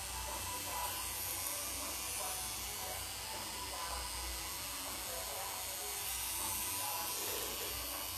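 Pen-style rotary tattoo machine running with a steady electric buzz as it fills in a tattoo on skin.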